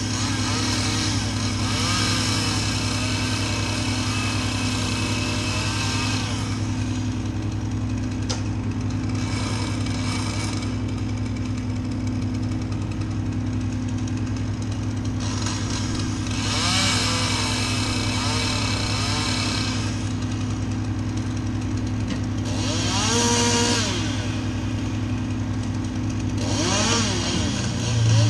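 Stihl chainsaw revving and cutting in repeated bursts, its pitch rising and falling, over a steady engine drone that runs underneath.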